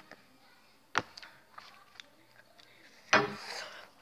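Handling noise on a glass-topped table: a sharp knock about a second in, a few light clicks, then a louder, longer noise about three seconds in.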